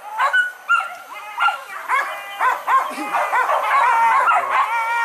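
Several boar-hunting dogs yelping and baying in quick, overlapping high calls, with one longer drawn-out yelp near the end.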